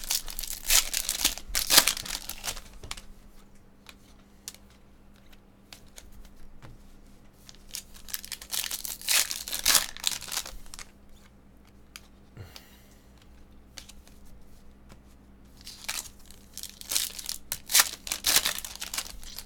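Foil wrapper of a trading-card pack crinkling and tearing open, in three bursts: at the start, near the middle and toward the end. Quieter card handling between.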